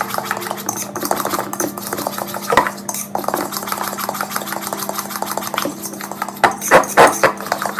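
A utensil stirring banana bread batter in a mixing bowl: a fast run of light clicks and scrapes against the bowl, with a few louder clinks near the end.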